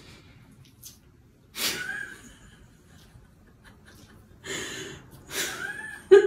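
Short breathy gasps and huffs, each with a rise and fall in pitch: one about two seconds in and two near the end. The last is followed by a brief, sharper and louder burst.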